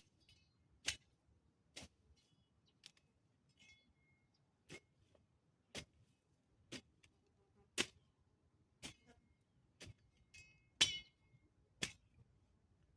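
Sharp strikes repeating steadily, about one a second, some with a brief metallic ring: a hand tool hitting or cutting in regular strokes.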